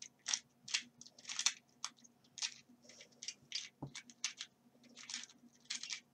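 Dayan Zanchi 2x2 speed cube being turned, its plastic pieces scraping and clicking in short irregular strokes, two or three a second. The turning sounds weird and feels as if the cube might lock up.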